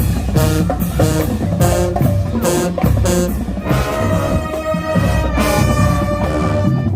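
High school band playing brass and drums: short punchy rhythmic hits for the first few seconds, then a long held brass chord from about halfway through.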